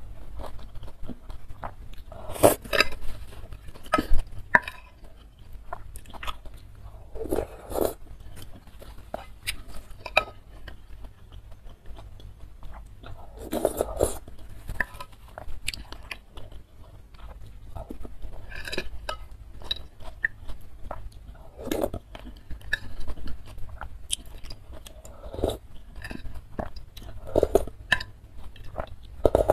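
Close-miked eating of spicy instant-noodle soup: broth slurped from a metal spoon in loud bursts every few seconds, with chewing and mouth sounds in between.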